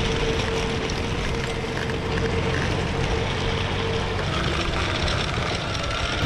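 Off-road electric skateboard rolling over rough road with a wagon in tow: a low, steady rumble of wheels on the surface under a steady electric-motor whine that fades out about four seconds in.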